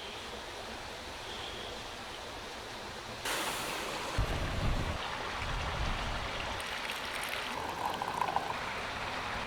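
Creek water rushing steadily over rocks. It gets suddenly louder about three seconds in, with a low rumble for a couple of seconds after that.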